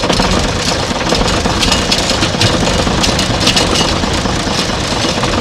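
An old loader's engine idling steadily close by, with irregular light clicks and rattles over the rumble.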